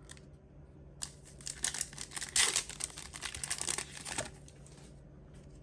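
Crinkling of a foil trading-card booster pack wrapper being handled, a crackly rustle that starts about a second in, peaks near the middle and stops shortly before the end.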